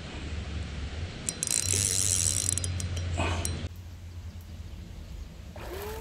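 Fishing reel being worked, a mechanical ratcheting clatter, loudest from about one to nearly four seconds in.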